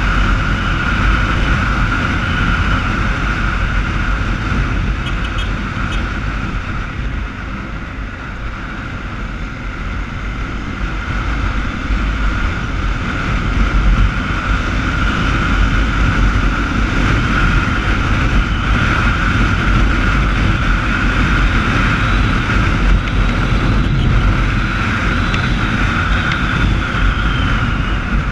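Motorcycle riding at speed, wind rushing over the camera microphone over the steady running of the engine and road noise. The noise dips slightly about eight seconds in and picks up again a few seconds later.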